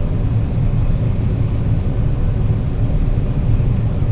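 Combine harvester running through soybeans, a steady low drone of engine and threshing machinery.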